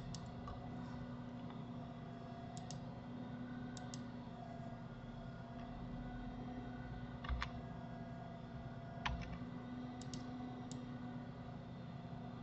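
Computer mouse button clicks, several in quick pairs, with two louder knocks about seven and nine seconds in, over a steady low hum.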